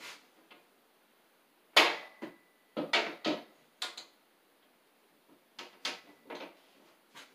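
Metal ClosetMaid shelving standards knocking and rattling against the wall and their top track as they are hooked in and set in place: a few sharp clanks, the loudest about two seconds in with a brief ring, then smaller clicks a little later and again about six seconds in.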